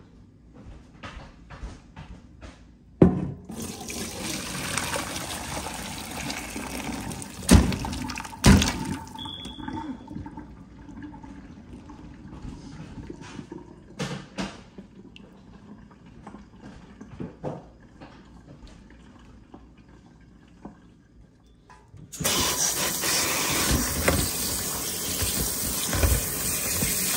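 Water running from a tap in two runs: the first starts a few seconds in and fades away after several seconds, and the second starts suddenly near the end and is louder. Scattered knocks and clatters come in between.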